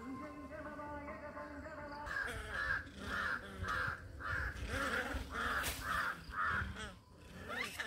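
An animal calling: a run of about eight harsh calls, evenly spaced at roughly two a second, starting about two seconds in.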